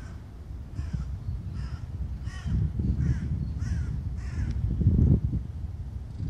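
A crow cawing repeatedly: about seven caws in a steady series, roughly one every two-thirds of a second, stopping after about four and a half seconds. Under it runs a low rumble that swells toward the middle and peaks about five seconds in.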